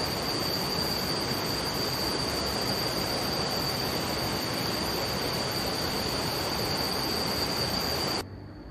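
Rushing stream water, a steady even rush, with a steady high insect trill over it. The water sound stops abruptly about eight seconds in.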